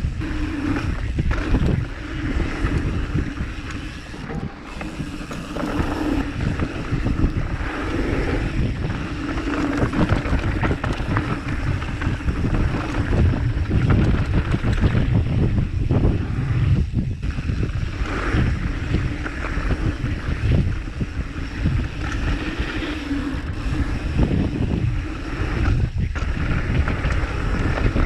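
Wind buffeting the microphone: a loud, rushing, ever-shifting rumble, heaviest in the low end.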